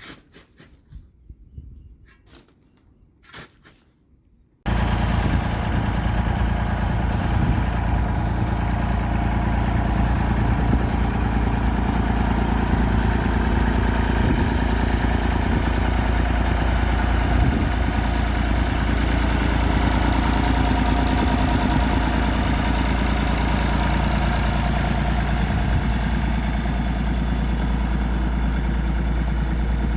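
Faint clicks in near quiet, then about four and a half seconds in an engine begins abruptly at full level and runs steadily at idle.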